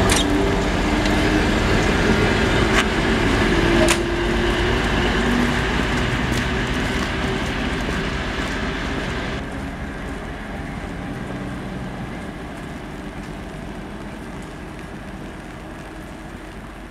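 Departing passenger train, hauled by a TEP70 diesel locomotive, rolling past and pulling away: steady rumble of coaches on the rails with a few sharp wheel clacks in the first four seconds, then fading steadily as the train moves off.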